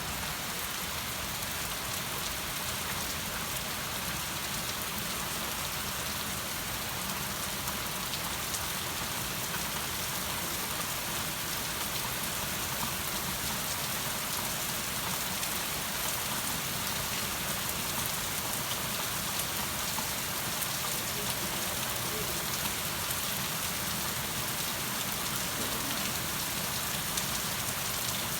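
Steady rain falling on surfaces, an even hiss full of fine drop ticks.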